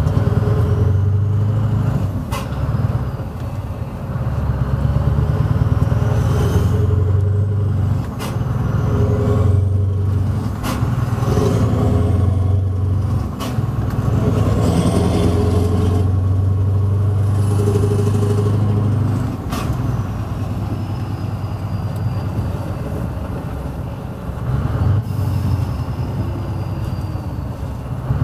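Scania R500 V8 truck engine with loud exhaust pipes pulling through town. Its low, heavy note rises and eases off several times, with brief dips between gears and a few sharp clicks.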